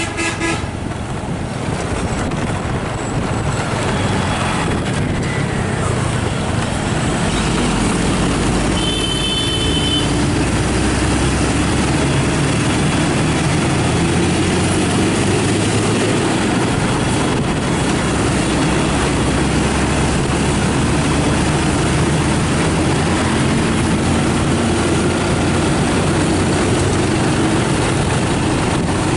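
Steady engine and road noise of a moving bus, building over the first few seconds and then holding level, with a brief high-pitched tone about nine seconds in.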